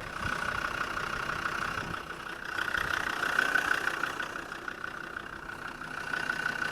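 Land Rover Defender's engine running steadily, with a constant high hum over it that swells a little midway.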